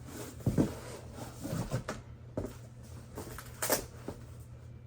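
Cardboard packaging being handled and pulled open: scattered knocks and rustles, with one short sharp rasp a little before the end, over a steady low hum.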